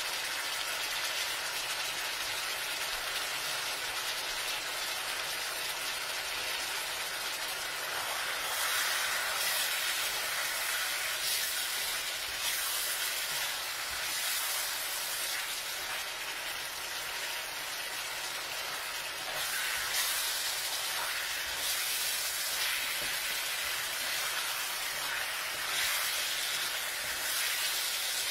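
Chicken pieces sizzling steadily as they fry in a stainless steel pan, with the sizzle swelling several times as a spatula stirs and turns them.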